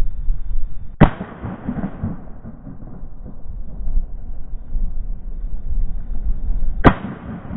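Two shotgun shots about six seconds apart, the first about a second in and the second near the end, each followed by a short rumbling tail. Wind rumbles on the microphone between them.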